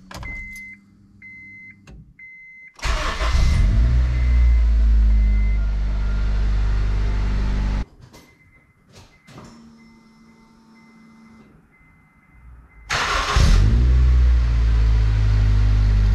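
Honda CR-V's B-series four-cylinder engine started twice, breathing through a new FlowMaster high-flow catalytic converter: a repeating dashboard chime beeps, the engine cranks and fires about 3 s in and runs, is switched off abruptly near 8 s while the chime beeps again, then restarts about 13 s in and keeps running.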